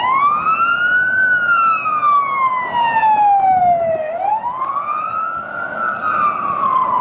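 Emergency-vehicle electronic siren in wail mode: one tone rising and falling slowly. It climbs to its peak about a second in, sinks over the next three seconds, then climbs again and peaks near six seconds.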